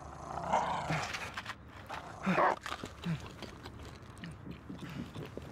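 A dog's short vocal sounds: one near the start and a louder one about two and a half seconds in, with a few soft knocks afterwards.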